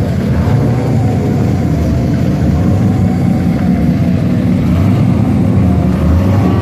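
Modified cars' engines idling with a loud, steady low rumble as they creep forward in a queue on the track.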